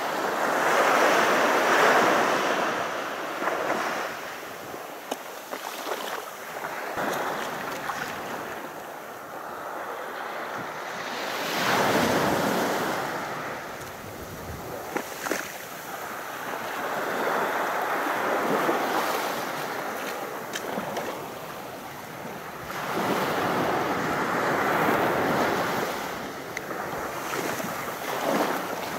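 Sea waves breaking and washing up a sandy beach, swelling and fading four times, several seconds apart, with wind noise on the microphone.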